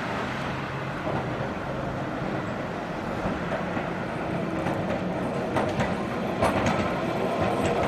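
Heritage electric tram approaching and passing, its steel wheels clicking and clattering on the rails, with the clicks bunched and loudest about five to seven seconds in over a steady rumble.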